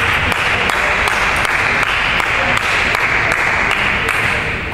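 Table tennis ball clicking in a rally, about two to three hits a second, under a steady rush of applause-like hall noise that stops near the end.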